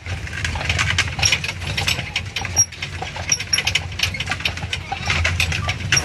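Horse-drawn carriage on the move: irregular clopping and rattling over a steady low rumble.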